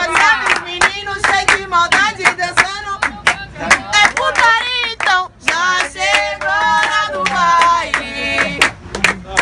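A group of people clapping their hands in a steady, even beat, with several voices singing along over the claps.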